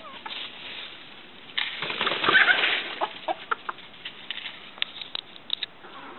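Sebright bantam chickens scuffling: a loud burst of wing flapping with a short call in its middle, about two seconds in, followed by scattered sharp taps and clicks.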